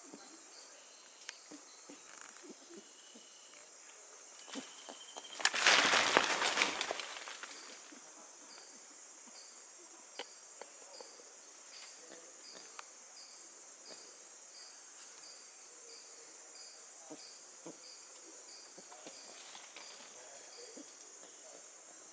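Rainforest insects droning steadily at a high pitch, with a fainter insect chirp repeating about one and a half times a second and scattered small clicks. About five and a half seconds in, a loud rush of rustling noise lasts about two seconds.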